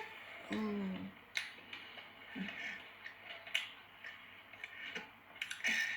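Mouth sounds of someone eating: scattered sharp wet clicks and smacks while chewing, with a short hummed "mm" about half a second in and a brief hiss near the end.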